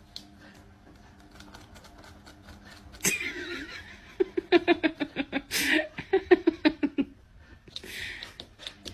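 A person laughing: breathy outbursts and, in the middle, a quick run of short 'ha-ha' pulses.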